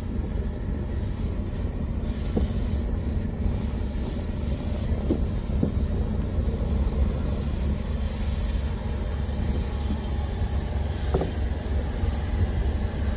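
Steady low rumble with a hiss over it, from a burning yacht being doused by firefighters' hoses, with a few faint knocks.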